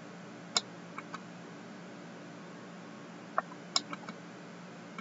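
Several sharp computer mouse clicks, one about half a second in, two around one second, and a quick cluster of four near the middle-to-end, over a steady low hum.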